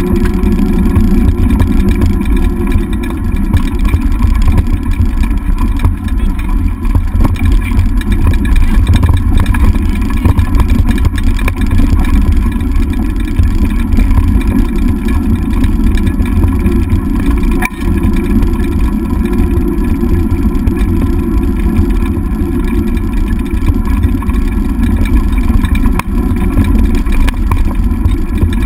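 Dog scooter rolling fast over a dirt trail, its wheel and wind noise picked up by a camera mounted on the handlebars: a loud, steady, muffled rumble.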